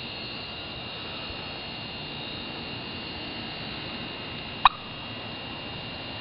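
A single short, sharp cluck from a wild turkey about three-quarters of the way through, over a steady hiss and a thin, steady high tone.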